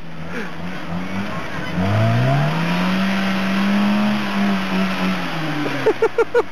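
Kia SUV's engine revving hard as it tries to drive out of a muddy ditch. The revs climb about two seconds in, hold high for a few seconds, then fall away, with a few short sharp sounds near the end.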